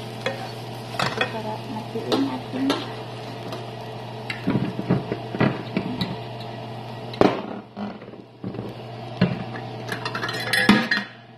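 Wooden spatula stirring a chicken and vegetable filling in a pan, scraping and knocking against the pan at an irregular pace, with a quick run of clatter near the end. A steady low hum runs underneath.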